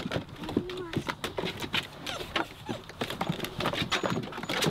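Weimaraner puppies scrabbling about in a plastic wagon, many quick irregular clicks and scratches of claws on the plastic, with a few brief whimpers.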